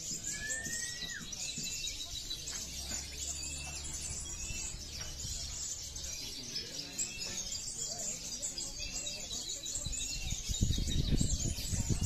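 Many caged konim songbirds chirping and twittering together in a dense high chatter, with one clear whistle that rises and then falls at the start. A low rumble swells near the end.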